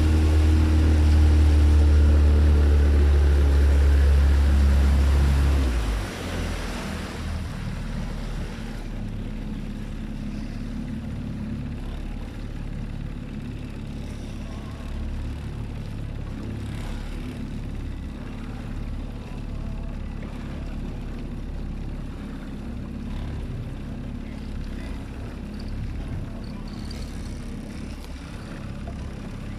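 Evinrude 40 E-TEC two-stroke outboard driving a small boat, running loud with its pitch slowly falling over the first few seconds. About six seconds in it is throttled back and the level drops sharply; the engine then runs on steadily at low speed.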